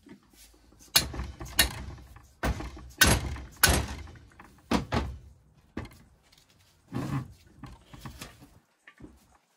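A hammer striking a steel bar set through the cast-iron water injection valve of a Lister Q type vaporiser, knocking it apart: about seven sharp metallic blows with a short ring in the first five seconds, then a few softer knocks.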